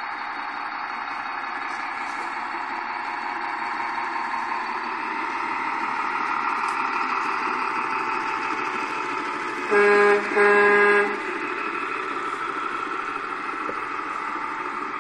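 Radio-controlled King Hauler semi truck running with a steady drive noise. About ten seconds in, its horn gives two toots, the second longer, and these are the loudest sounds.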